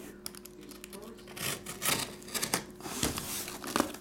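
Cardboard shipping case being handled and turned over, its packing tape being cut: a series of short rasping, tearing sounds with a few sharp knocks of the box on the table, the clearest about three seconds in.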